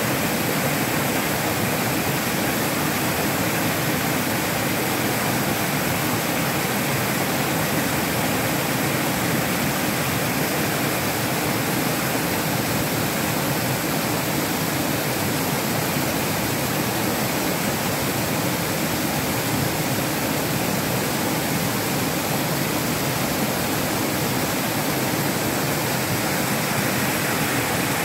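Waterfall pouring over rock ledges: a steady, unbroken rush of water.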